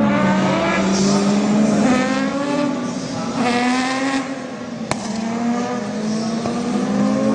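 Racing touring car engine accelerating hard, its pitch rising in repeated sweeps as it shifts up through the gears. A sharp click about five seconds in.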